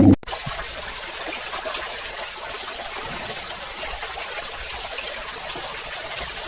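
Water trickling steadily, the outflow of a small DIY submersible water pump.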